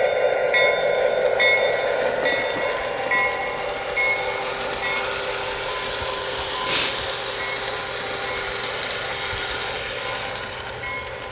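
LionChief RS3 model diesel locomotive running, its sound system giving a steady hum with a short ringing tone about once a second. A sharp click comes about two-thirds through, and the sound slowly grows fainter toward the end.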